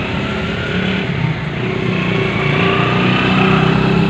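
Diesel tractor engine running steadily, swelling a little about three seconds in.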